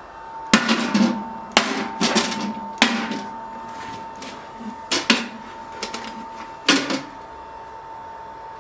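Steel machete blade knocked against a stainless steel plate: about six sharp metallic clanks in the first seven seconds, with a steady high ring that starts at the first hit and keeps sounding between and after them.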